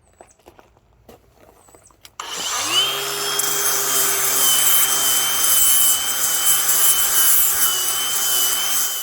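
A few faint clicks, then a power tool starts about two seconds in, its motor spinning up quickly to a steady whine over a harsh hiss, and runs evenly until it cuts off suddenly at the end.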